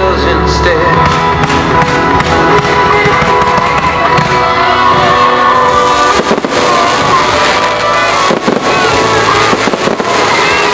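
Fireworks bursting over sustained music, with sharp bangs from the shells about six, eight and a half and ten seconds in.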